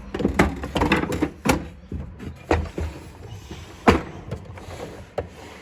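Wooden trays of a hand-tool chest being slid and shifted along their runners, with a series of wooden knocks and scrapes; the loudest knock comes about four seconds in.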